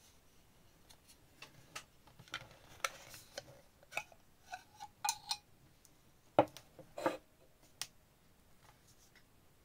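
Plastic clicks and scrapes from a Netatmo outdoor module's end cap being twisted loose and its plastic battery holder slid out of the aluminium tube, with two louder knocks a little past the middle.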